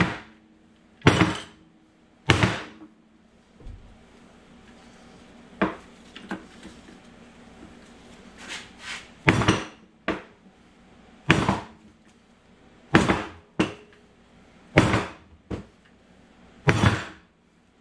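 Hammer blows, about a dozen at uneven intervals, each with a short metallic ring, driving gears down onto a Honda J-series transmission gear shaft; the gears are moving down slowly.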